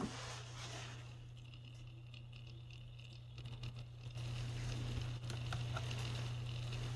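Himpel C2-100LF(MD) bathroom exhaust fan unit with a steady electric motor hum. A few clicks come a little past the middle, then the hum and the rush of air grow louder and hold steady as the fan runs.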